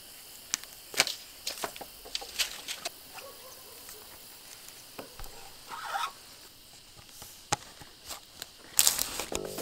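Scattered clicks and snaps of garden shears cutting black plastic irrigation tubing and the tubing being handled, with a louder cluster of clicks near the end.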